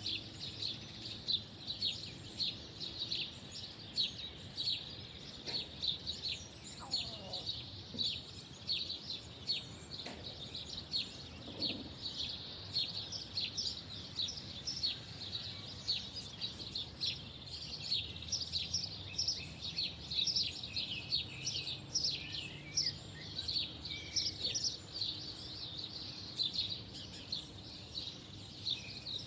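Small birds chirping continuously, many short high chirps overlapping, over a faint low background hum.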